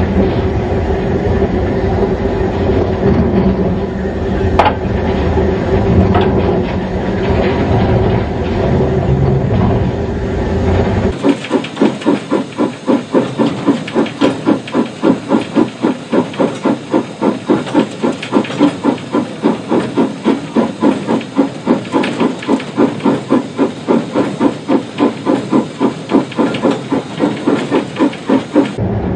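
Steam locomotive working hard uphill. For about eleven seconds there is steam hissing over a heavy rumble. After that come sharp, even exhaust chuffs, roughly three a second.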